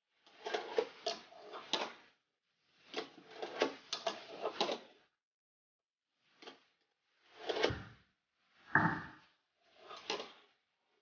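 Fingerboard wheels rolling on wooden mini ramps, with sharp clacks of the board popping and landing, in several short bursts that cut off abruptly. A heavier thud about nine seconds in.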